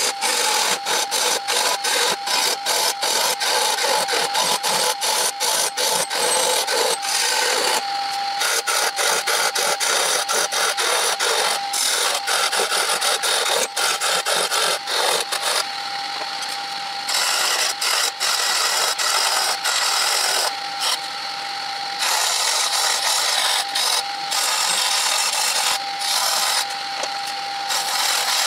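Wood-turning chisel cutting a spinning wooden blank on a wood lathe: a continuous scraping, rasping cut full of rapid chatter, stopping briefly a few times as the tool is lifted off, over a steady tone from the running lathe.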